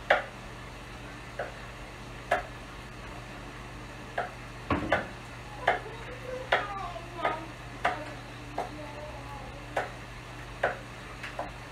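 A cooking utensil knocking and scraping in a pan as food is stirred: about a dozen sharp knocks at uneven intervals, over a steady low hum.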